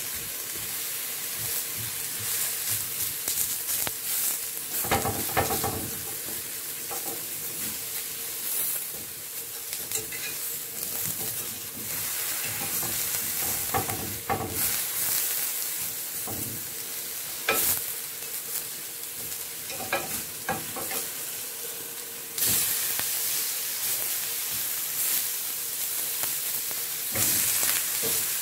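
Eggplant slices sizzling on a hot, ridged grill pan, with scattered clicks and scrapes of a metal fork turning them against the pan. The sizzle gets louder about two-thirds of the way through.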